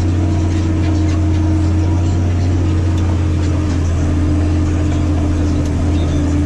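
Massey Ferguson 8210 tractor engine running steadily under load while pulling a disc harrow through wet ground, a constant low drone.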